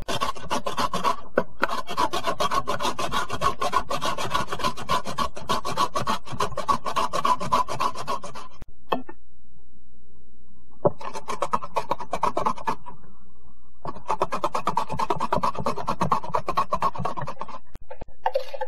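Daikon radish being shredded on a plastic julienne grater: quick back-and-forth rasping strokes, in three long runs broken by short pauses.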